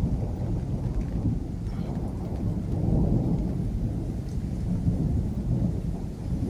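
Low rumble of thunder from a thunderstorm, swelling about halfway through.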